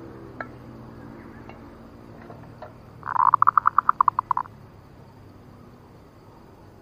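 Zebra dove (perkutut) lure call: one strong opening note followed by a quick run of about ten even, clear pulses over about a second and a half, imitating a male zebra dove's cooing to draw in wild males. A few light clicks come before it.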